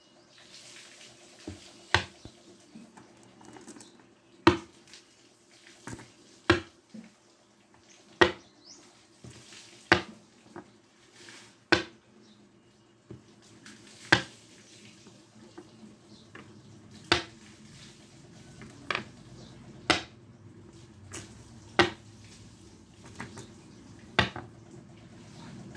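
Flat-backed glass gems being set down one by one on a wooden board, each landing with a sharp click; about a dozen clicks, a second or two apart.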